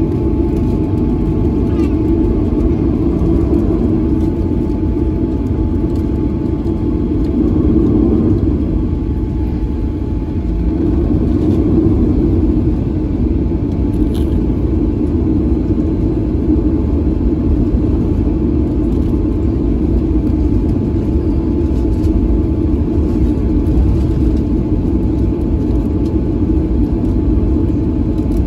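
Steady low rumble in the cabin of a Boeing 737-900 taxiing, its two CFM56-7B turbofans running at taxi power.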